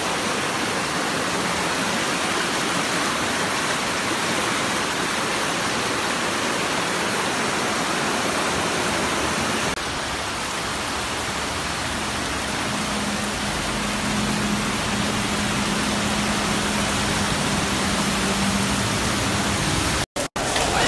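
Floodwater rushing through a city street: a loud, steady rush of water. A low steady hum joins it past the middle and stops near the end.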